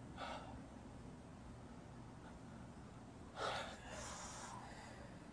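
A crying person's breathing: a short sharp sniff or gasp about a quarter second in, and a louder, longer one about three and a half seconds in, over a faint low hum.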